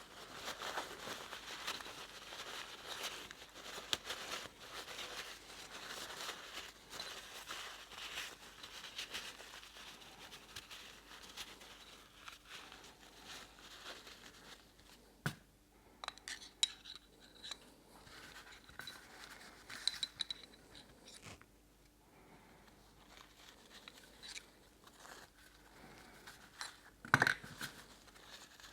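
Close handling noise: rustling and scraping, like paper or a rag being worked over parts. In the second half come scattered light clicks and a sharp knock near the end.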